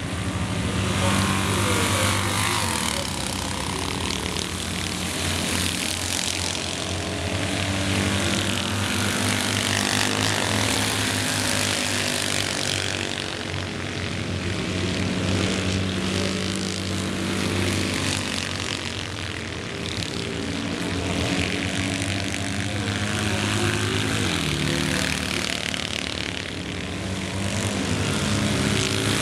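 Citroën 2CV cross racing cars' air-cooled flat-twin engines running hard on a dirt track, a continuous buzzing drone whose pitch rises and falls several times later on as the cars accelerate and lift off.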